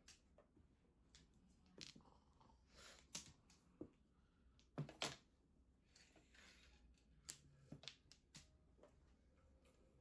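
Mahjong tiles clacking on the table as they are drawn from the wall and discarded: scattered sharp clicks at irregular intervals, the loudest pair about five seconds in.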